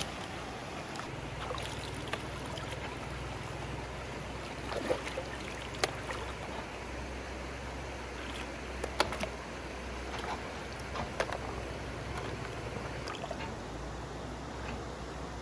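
Shallow water sloshing and trickling as a person wades and gropes in it by hand, with a few sharp splashes about five, six, nine and eleven seconds in.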